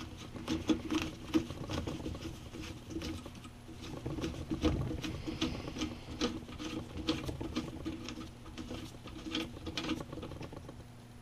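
Irregular light clicks, taps and scraping of steel parts being handled and adjusted on a belt grinder's tracking mechanism, over a faint steady hum.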